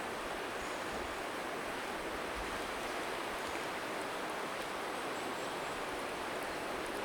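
Steady rushing of a river's flowing water, with low wind buffeting on the microphone now and then.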